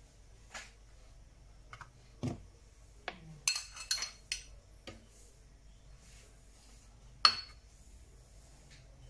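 A metal spoon clinking and tapping against kitchen containers while ingredients are spooned toward a blender jar. There is a cluster of quick clinks and knocks in the middle, then one sharp, louder clink a few seconds later.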